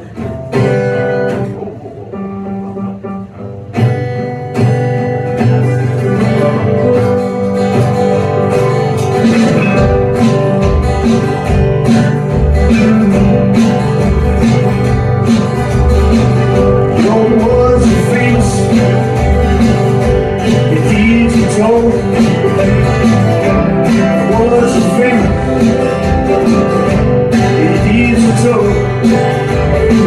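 Live band with acoustic and electric guitars and a drum kit playing a song. It opens quietly, the full band comes in about four seconds in, and a steady low drum and bass beat fills in from about ten seconds.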